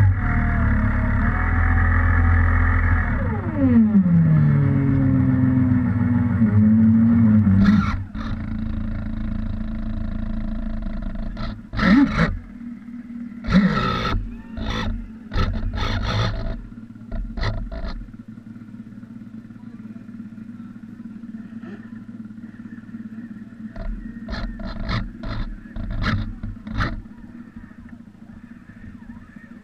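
Motor of a radio-controlled model lobster boat, heard from on board: it runs at a steady pitch, drops in pitch as it slows about four seconds in, then holds a lower steady tone. Scattered short noisy bursts come in the second half, and it gets quieter near the end.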